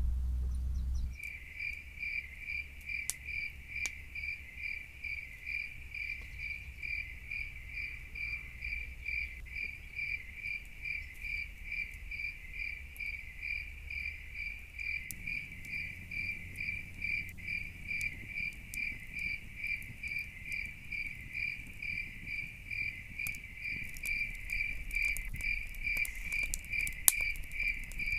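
A cricket chirps steadily, a high pulsing tone repeating about four times a second. Scattered sharp clicks come in near the end.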